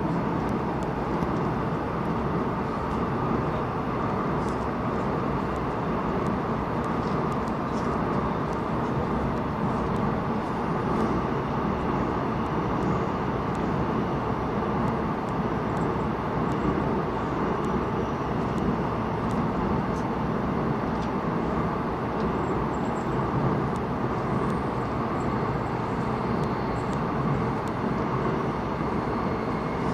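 Airport Railroad express train running at steady speed through a tunnel: an even rumble and rush of wheels on rails, with faint clicks now and then.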